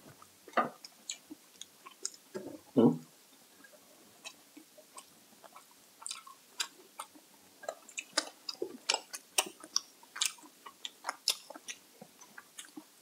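Close-up chewing of crispy binagoongan (crispy pork in shrimp paste): many short crunches and wet mouth clicks, sparse at first and coming thick and fast from about halfway. Two brief louder low sounds in the first three seconds.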